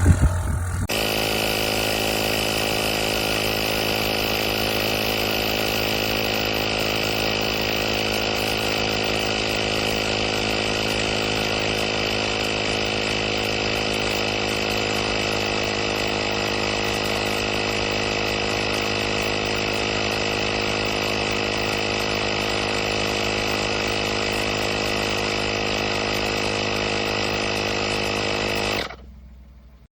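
AstroAI 12 V portable air compressor running steadily with an even, many-toned hum, then cutting off abruptly about a second before the end.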